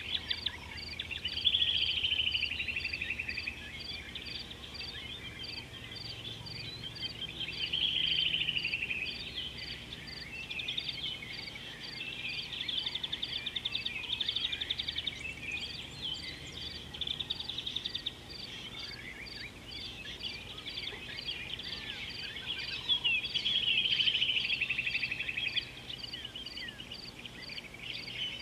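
Birds and insects calling in the bush. A high chirp repeats evenly about twice a second throughout, and loud trilled calls that fall in pitch come three times: near the start, about a third of the way in, and near the end.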